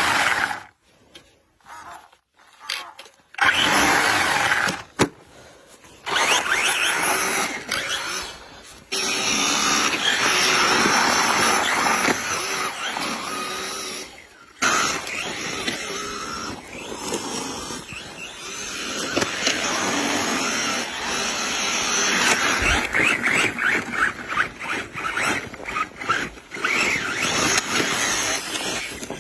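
Radio-controlled drift car running, its tyres hissing and scrubbing across the pavement in several runs, each broken off by a sudden cut.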